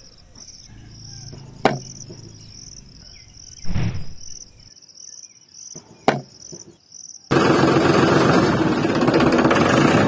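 Crickets chirping steadily, about two chirps a second, with two sharp taps and a dull thud as miniature clay bricks are handled and set down. About seven seconds in, a loud, steady rushing noise cuts in suddenly and drowns out the crickets.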